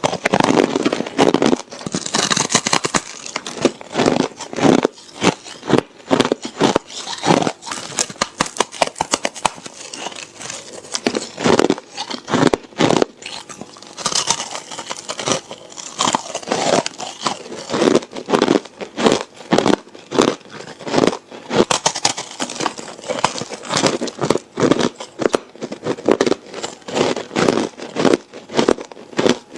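Ice being bitten and crunched between the teeth: a dense, irregular run of sharp crunches and cracks.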